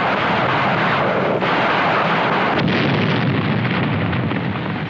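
Battle sounds of artillery fire and explosions, a continuous loud din with brief breaks about a second and a half and two and a half seconds in.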